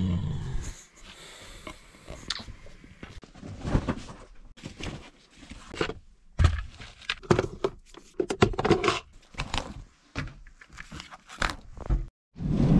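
Irregular rustling and scraping of clothing and small objects being handled, in short bursts with a few sharp knocks and clicks: rummaging in a car door pocket and handling a padded jacket.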